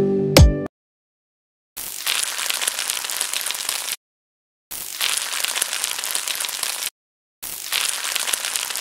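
Poha pooris deep-frying in hot oil in a wok: a steady sizzle and crackle of bubbling oil. It is heard in three stretches of about two seconds each, separated by short silent gaps.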